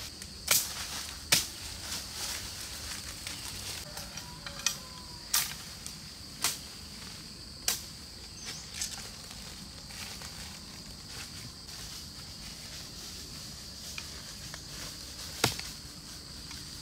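Sharp snaps and cracks of a knife cutting through plant stems and of steps on dry leaf litter, scattered, most in the first half, with one loud crack near the end. Under them runs a steady high-pitched drone of insects.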